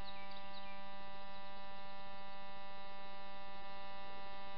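Steady electrical buzz in the recording: a dense, unchanging stack of even tones from low to high, a fault in the audio rather than anything in the scene. A few faint high chirps sound in the first second.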